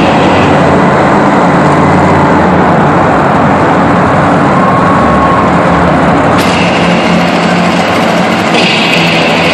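Monster truck engines running at the same time, a loud, steady din. These are supercharged V8s.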